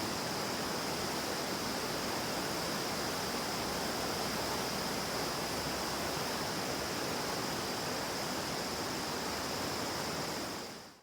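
Mountain river rushing over rocks, a steady even roar with a constant high-pitched hiss on top, fading out near the end.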